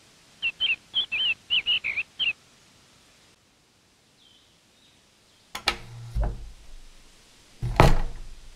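Bird chirping: a quick run of about eight short chirps. After a quiet stretch come two sharp knocks, each followed by a low thud, the second one louder.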